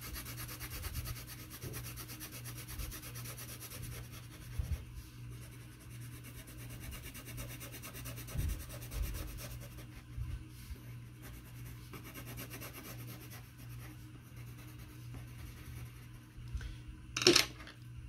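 Coloured pencil rubbing back and forth on paper, shading in a large area with quick, steady strokes. A brief louder knock comes near the end.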